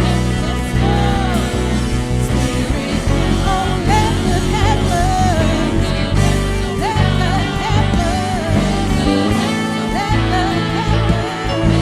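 Live worship band playing an instrumental stretch of a worship song: sustained bass and chords underneath, with a melody line sliding up and down in pitch above them.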